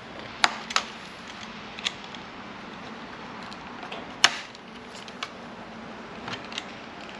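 A few sharp, separate clicks and snaps of hard plastic, the loudest about four seconds in. They come as cable ties are worked through a plastic front grille to fix a perforated metal radiator guard.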